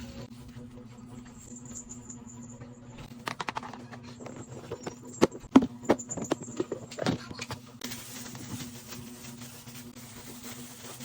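Containers and food items knocked and set down while restocking a refrigerator: a few light knocks, then a cluster of sharper clatter and knocks in the middle, over a low steady hum.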